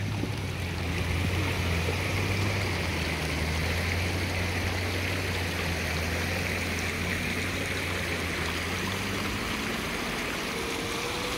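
Toyota Land Cruiser engine running low and steady as the SUV crawls slowly off-road, over the continuous rush of a mountain stream. The engine hum fades away near the end.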